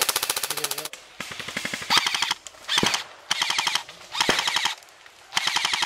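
Airsoft guns firing on full auto in a series of short bursts of rapid clicking shots with brief gaps between them. One long burst comes first, and two single sharp cracks fall among the bursts.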